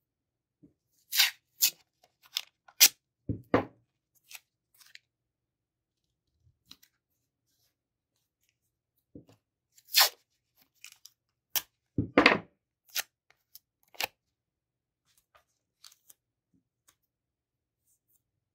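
A sheet of watercolor paper handled by hand: a series of short, dry rustles and scrapes, bunched in two clusters with a pause between. The longest and loudest comes about twelve seconds in.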